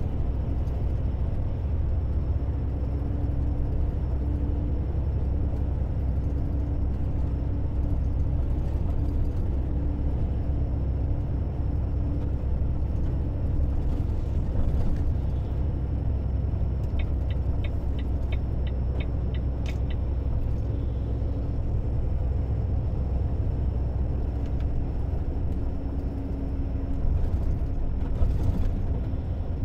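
Steady low rumble of a car driving along. Past the middle comes a run of about ten even ticks, roughly three a second, ending in one sharper click.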